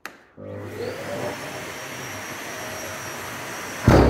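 Kärcher wet-and-dry vacuum switched on with a click, its motor spinning up and running steadily, then switched off with a loud thud like a big bass drum near the end. The thud is the filter clean at shutdown, which by all accounts shakes debris loose from the filter.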